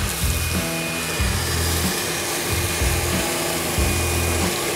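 Wet/dry shop vacuum running, sucking dirt, twigs and old nest debris out of an airplane's tail section, over background music with a pulsing bass line.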